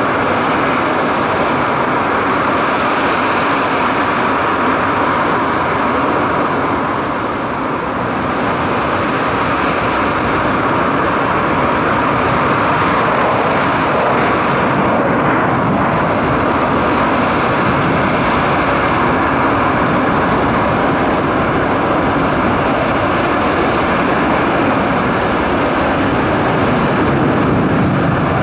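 Airliner jet engines at takeoff power, a loud, steady rush as an Airbus A321 rolls down the runway and climbs out. The level dips slightly about seven seconds in.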